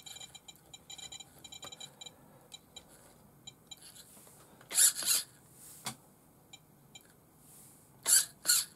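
Hobby servo on an RC buggy whirring in short bursts as the transmitter drives it while its end points are set to cure too much throw. There is a rapid run of faint electronic buzzing for the first two seconds, then two quick pairs of loud whirs, one about five seconds in and one near the end.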